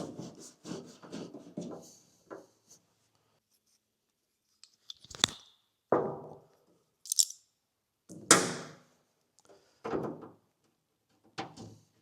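Intermittent clicks, clunks and rustling of small metal parts and tools being handled while dash panel-light holders are fitted to a Willys MB jeep dash. There are about half a dozen separate knocks and clicks, with short silences between them.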